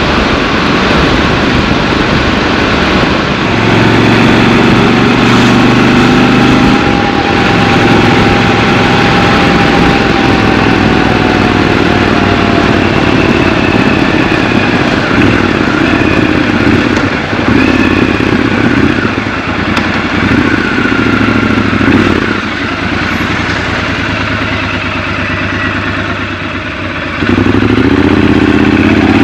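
Triumph Scrambler 1200 XC's parallel-twin engine under way in city riding, its note shifting with the throttle. Near the end it drops back quieter for a few seconds, then picks up again as the bike accelerates.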